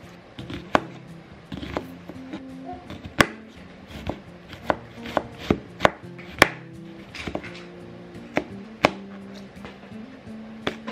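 Chef's knife dicing an onion on a cutting board: sharp knocks of the blade striking the board, irregular and roughly one a second, coming faster around the middle.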